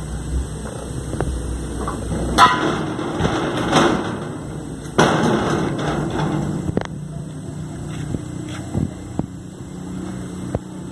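Irregular knocks and thuds, several sharp ones spaced a second or two apart, the loudest about two and a half and five seconds in, with a low steady hum from about halfway.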